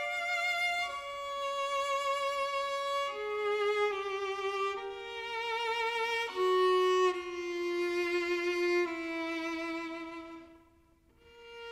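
Viola playing a slow, singing melody in long held notes with vibrato; the phrase dies away near the end before the next note enters.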